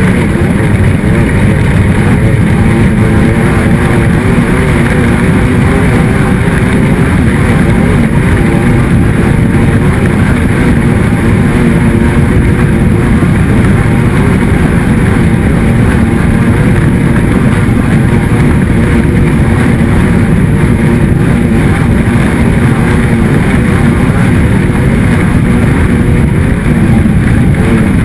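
Race car engine running loud and continuously at high revs, its pitch wavering up and down as it speeds up and slows.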